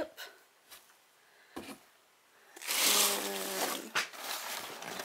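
Hands rustling through shredded paper packing filler in a cardboard box. The loudest stretch comes about halfway through, with a short hum from a person over the rustling.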